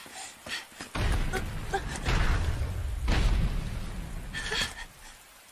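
A deep, loud rumble sound effect that starts suddenly about a second in, runs about four seconds and then dies away.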